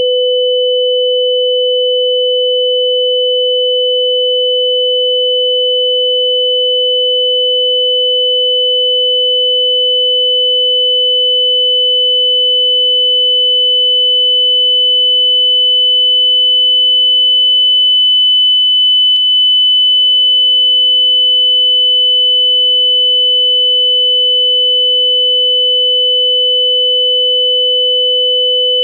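Two steady pure tones sounding together, one high-pitched and one lower, as a simulation of tinnitus ringing. Just past the middle the lower tone fades away and stops for about a second and a half, then comes back while the high tone carries on.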